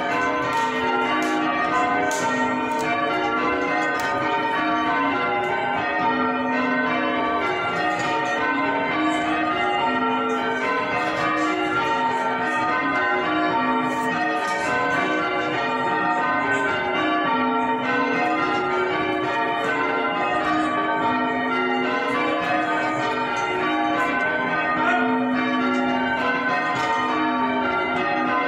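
A ring of six church bells rung full circle in change ringing, the bells striking one after another in a steady, unbroken rhythm, heard from the ringing chamber below the bells.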